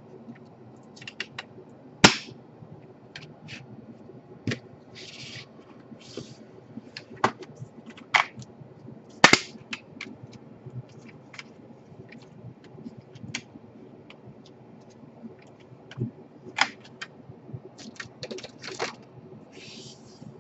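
Plastic case of an Asus K56CA laptop being pried apart: irregular clicks and snaps of the case clips letting go, with two loud sharp cracks about 2 and 9 seconds in and a few short plastic scrapes.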